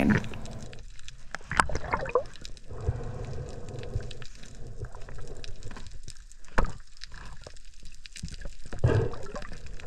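Underwater water noise around a camera: gurgling and sloshing with scattered clicks and knocks, the sharpest knock about six and a half seconds in.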